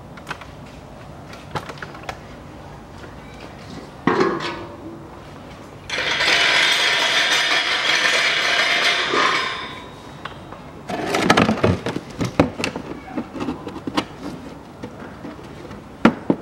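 Plastic wheel-arch liner being worked back into place against the bumper: scattered clicks and knocks, a clatter of plastic about eleven seconds in, and in the middle a steady hiss lasting about three seconds.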